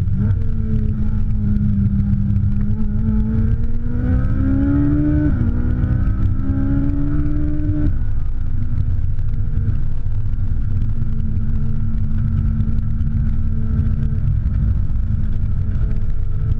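Ferrari 458 Italia's V8 heard from the cabin under hard acceleration: the revs climb, drop sharply about five seconds in as it shifts up, climb again, then fall away at about eight seconds and settle to a steady lower note. A heavy low rumble runs underneath throughout.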